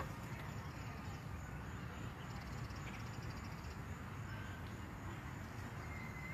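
Quiet outdoor park ambience: a steady low rumble of distant wind and traffic, with faint bird chirps, one short whistled note near the end, and a faint high insect trill.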